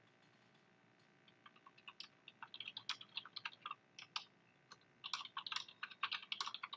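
Typing on a computer keyboard: quick runs of key clicks starting about a second in, with a short pause a little past the middle.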